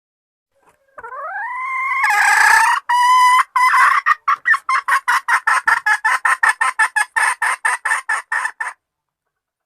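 Female junglefowl's mating-solicitation call: a call that rises in pitch and swells into a loud, harsh note, then breaks into a fast run of short clucks, about five a second, that stops abruptly.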